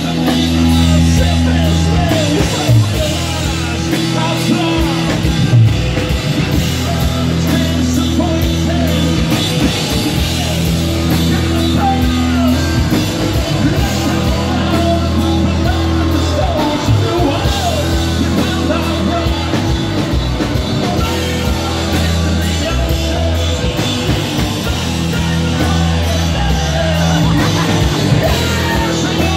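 A live rock band playing loud, with drums, electric guitar and banjo under a man singing.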